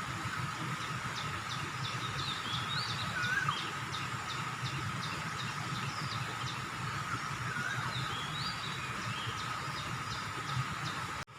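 Steady outdoor background noise with a low rumble and a thin, continuous high tone, while a small bird calls twice in quick series of short chirps and whistled notes. The sound cuts out for an instant near the end.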